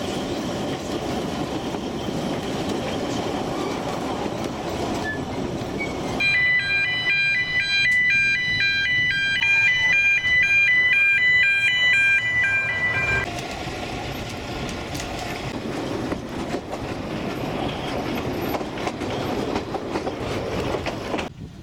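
Narrow-gauge train running, a steady rumble with rail clatter. About six seconds in, a loud electronic two-tone warning alarm starts, stepping between pitches about three times a second, and stops about seven seconds later: a road level-crossing alarm as the train crosses a street.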